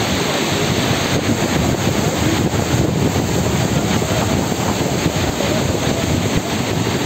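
Steady rushing of a mountain stream fed by melting snow.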